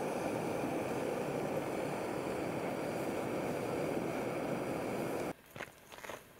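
Screw-on canister gas backpacking stove burning under a lidded pot: a steady roar that cuts off suddenly about five seconds in. Then a few footsteps on a dirt trail.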